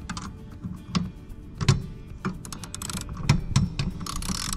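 Ratchet wrench and socket clicking in short, irregular strokes as a nut is tightened onto a seat-mounting bolt, with a couple of quicker runs of clicks near the end.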